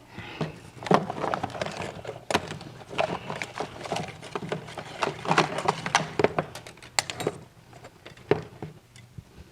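Handling and rummaging noise: parts and tools being clattered and knocked about while the carburetor linkage is fetched, a busy run of clinks and knocks that thins out after about seven seconds.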